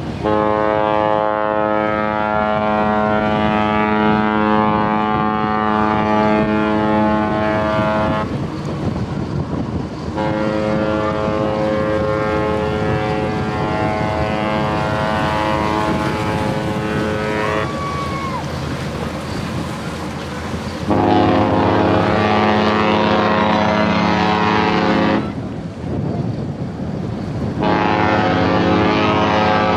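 Cruise ship horns trading long blasts. One horn sounds two long blasts of about eight seconds each, then a deeper-pitched horn answers with two shorter blasts, the second running on near the end. Wind noise is on the microphone throughout.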